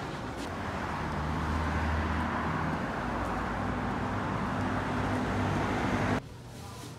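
Steady road traffic noise with a low engine hum beneath it. It cuts off abruptly near the end.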